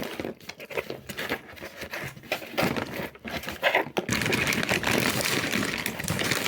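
Paper crinkling and light tapping from hands handling paper play pieces, turning into a steadier scratchy rubbing about four seconds in.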